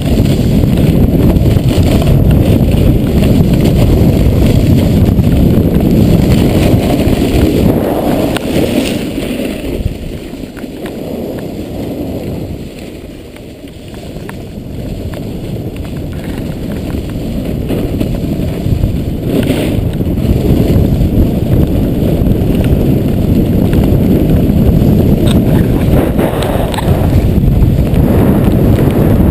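Wind rushing over an action camera's microphone on a fast snowboard run: a loud, steady low rumble that eases off for a few seconds around the middle and then builds back up.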